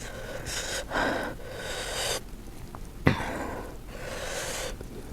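A person breathing hard through the mouth while eating spicy food, three long hissing breaths with a small click near the start of the third, as when cooling a mouth burning from chilli.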